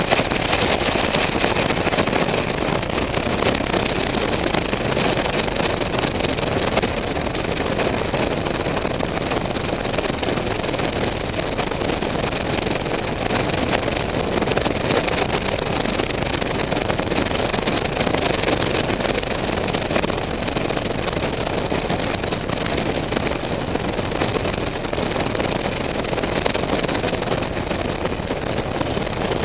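Strong wind of over 30 mph blowing across the microphone: a steady, loud rumble and rush of wind noise with no break.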